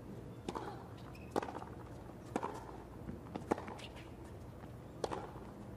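Tennis rally on a hard court: five sharp pops of rackets striking the ball, about a second apart, with fainter ticks between them, over a faint low hum.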